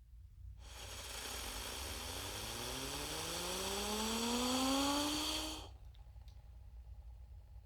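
Synthesized UFO sound effect: a hissing hum with steady high whines, under which a tone rises slowly in pitch for about four seconds, then cuts off suddenly, leaving a low rumble.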